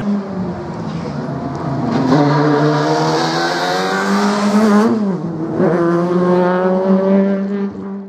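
Fiat Punto Super 1600 rally car's 1.6-litre four-cylinder engine at high revs, rising in pitch as it accelerates, with a sharp drop in revs about five seconds in before it climbs again.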